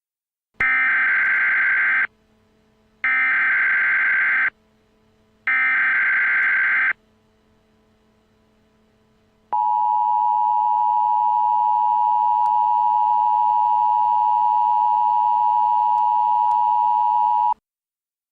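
Emergency Alert System tones: three short bursts of warbling digital SAME header data, each about a second and a half long. After a pause comes the EAS two-tone attention signal, a steady dual tone held for about eight seconds that cuts off suddenly.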